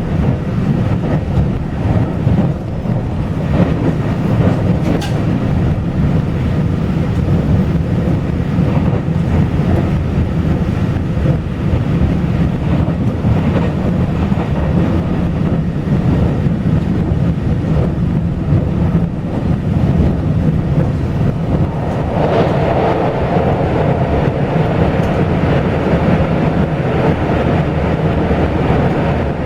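Taiwan Railway local express train running along the track: a steady, loud rumble of the running train. About 22 seconds in, a louder rushing hiss joins on top of the rumble.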